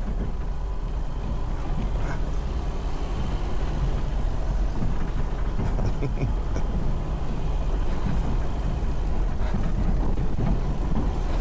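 Small carburetted four-cylinder car engine running steadily at low revs as the car rolls slowly, its exhaust split into four separate mufflers, one per cylinder. The exhaust itself is fairly quiet, and most of what is heard is the engine and its carburettor intake noise.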